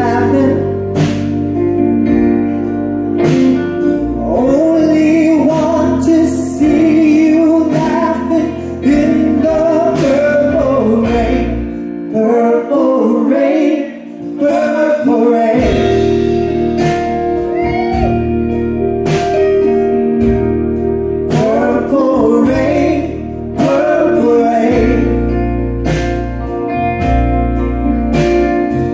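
Live band with a male singer: lead vocal over electric guitar, bass guitar, drums and keyboard. The bass and drums drop out for a few seconds about twelve seconds in, then come back in.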